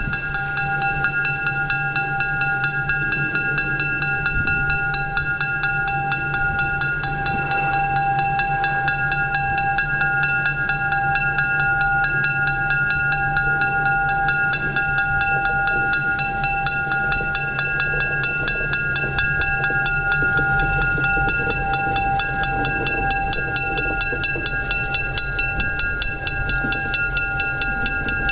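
A pair of GMD FP-9 diesel locomotives moving past close by at low throttle. Their EMD 567 V16 engines give a steady low drone with a steady high whine on top.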